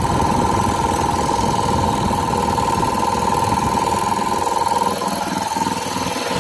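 Air compressor running: a three-cylinder pump driven by a 5 HP, 3450 rpm electric motor, pumping up the tank. A steady high tone sits over the pump's clatter.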